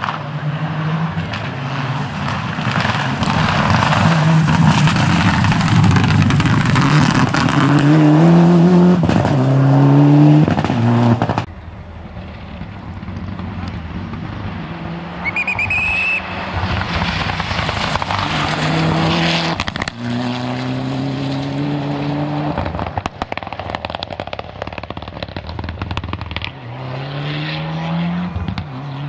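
Mitsubishi Lancer Evo rally car's turbocharged four-cylinder engine accelerating hard on a gravel stage, revving up and dropping back through gear changes again and again, with the rush of tyres on loose gravel. The sound cuts off abruptly about eleven seconds in and comes back quieter, the engine again climbing through the gears.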